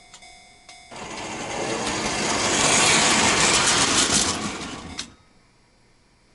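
O-gauge model train running past on the track, a rattling clatter of wheels and motor that builds for about two seconds, then fades and cuts off suddenly about five seconds in. A level-crossing bell's regular ringing stops just before the train noise begins.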